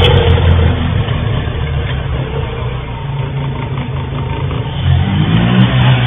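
Motorcycle engine running, fading as it moves off, then growing louder with rising revs about five seconds in as it comes back, heard through a security camera's microphone.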